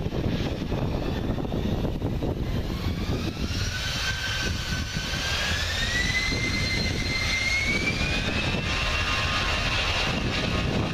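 Airbus A320's jet engines spooling up for take-off: a whine that starts about three seconds in and climbs in pitch in stages, levelling off near the end, over a steady rumble.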